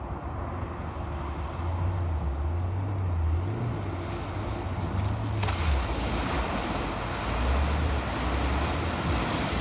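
A vehicle engine running low, its pitch rising and falling, as the vehicle drives through floodwater with a rush of water that grows louder about five seconds in.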